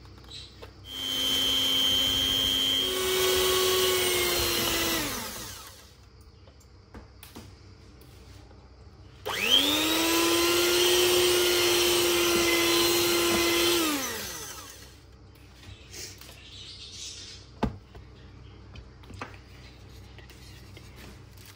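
Electric hand mixer whirring with its beaters in cake batter in a glass bowl, run twice for about four to five seconds each. The first run steps up to a higher speed partway through, and each run winds down as it is switched off. A single sharp knock comes a few seconds after the second run.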